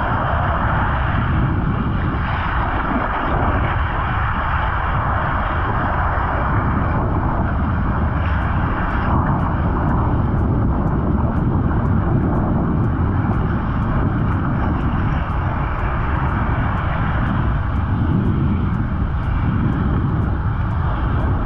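Steady wind blowing across an action-camera microphone, with surf washing in the shallows.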